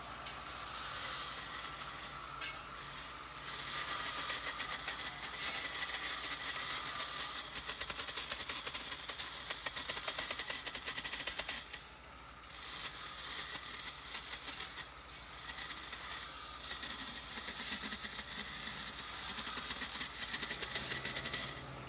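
Belt grinder running with a steel tube held against its narrow abrasive belt: a steady grinding hiss that dips twice near the middle as the tube eases off the belt. Over the first few seconds it is short steel tube pieces being ground at a spindle grinder.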